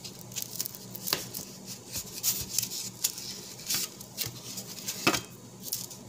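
Light handling noises: scattered small clicks and taps, the sharpest about a second in and again about five seconds in, over a faint steady hum.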